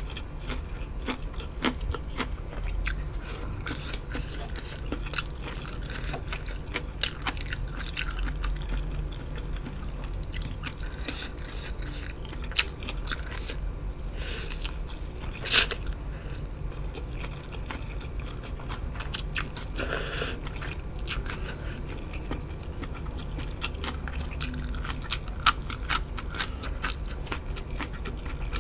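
A person eating close to the microphone: steady chewing and biting with crunches and small wet mouth clicks, and one louder sharp click about halfway through.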